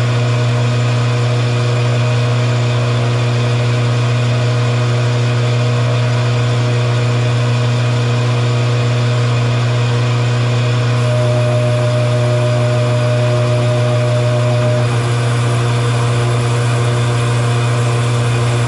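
Metal lathe running steadily with a strong motor hum while it turns down a steel workpiece. About eleven seconds in, a steady higher tone sounds for about four seconds and then stops.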